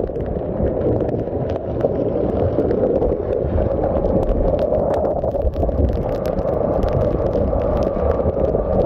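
Steady rumble and road noise of a vehicle on the move, with many small rattles and clicks throughout.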